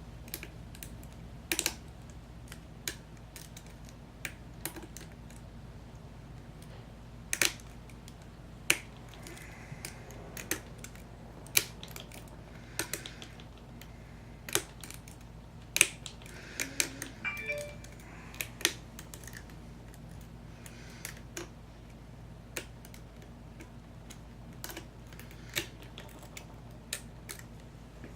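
Lock pick and tension wrench working the pin-tumbler cylinder of an American 5100 series padlock: irregular small metallic clicks and ticks as pins are lifted and set, over a steady low hum.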